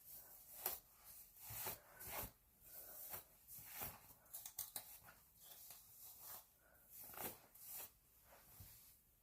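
Faint, short, scratchy rustles of a brush or comb being pulled through tangled hair, one stroke about every half second.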